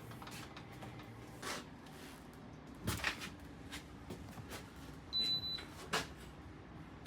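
Plastic knocks and clicks from handling the humidifier, with one short, high electronic beep about five seconds in, typical of its control panel acknowledging a button press.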